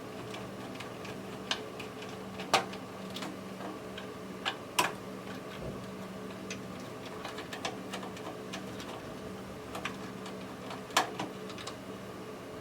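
Screwdriver backing out the motherboard's mounting screws in a metal PC case: scattered small clicks and metallic ticks, with a few sharper knocks.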